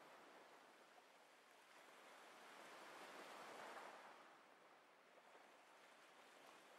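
Near silence: a faint hiss that swells gently in the middle and fades again.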